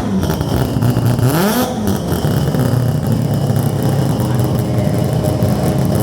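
A car engine running hard at high revs during a roll race run. Its pitch rises over about half a second a little past the first second, then it runs on steadily.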